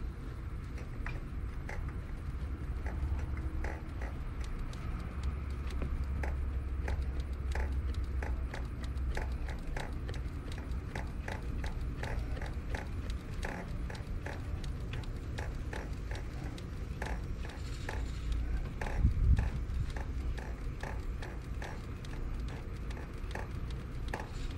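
Ratchet wrench clicking in many short, uneven runs over a low rumble, as a rear-bank spark plug is turned.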